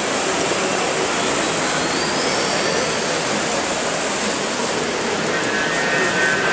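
Live-steam gauge 1 model of the LMS Turbomotive running under its steam turbine: a loud, steady rushing hiss of steam, with a faint rising whine about two seconds in.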